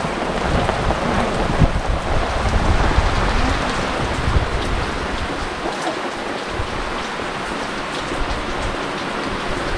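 Heavy rain falling hard, a steady, even hiss.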